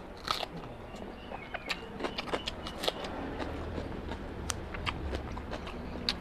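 Close-miked mouth sounds of chewing a mouthful of rice and mutton liver curry, many short wet clicks and smacks, with fingers squelching rice into curry on a steel plate.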